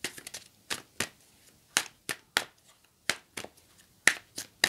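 Tarot cards being shuffled by hand: a string of sharp, irregular clicks and slaps, several a second.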